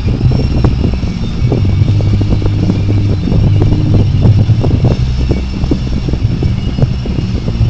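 Inside a car moving slowly in a rainstorm: a steady low hum of the engine and cabin, with many irregular taps of raindrops striking the car.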